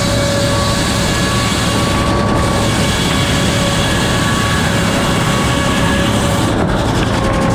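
Circular sawmill with an F-pattern inserted-tooth blade running at speed: a loud, steady mechanical noise with a held whine.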